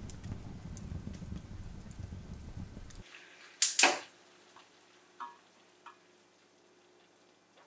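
A fire burning in a fireplace with a low rumble and occasional crackles, cut off suddenly about three seconds in. Then metal kitchen tongs clank twice against a pot as corn on the cob is lifted out, followed by a couple of lighter taps.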